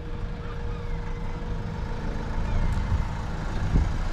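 A motor running steadily: a low rumble with a faint steady whine over it, one whine tone fading out about halfway through.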